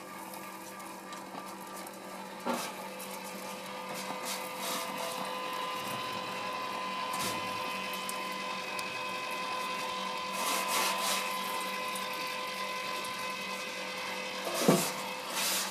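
Electric rotisserie motor humming steadily as it turns the chicken on the spit, with a few faint knocks and dabs from basting near the bird and a brief louder sound near the end.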